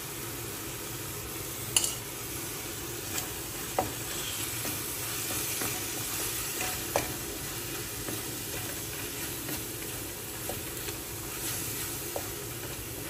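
Onion-tomato masala sizzling in a kadai while a wooden spatula stirs it, with a few sharp knocks of the spatula against the pan.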